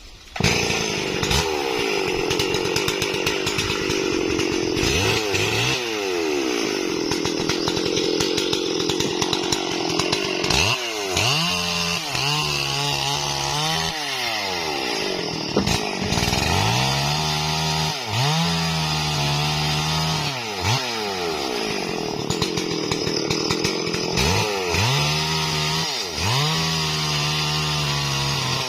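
Two-stroke Stihl MS440 chainsaw running at high revs while felling a tree. It comes in suddenly right at the start. From about a third of the way in, its pitch drops and climbs back again and again as the chain bogs in the cut and recovers.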